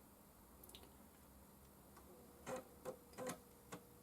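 Very faint room tone, then from about two and a half seconds in a run of light, irregular clicks, with a faint steady hum starting at about the same time.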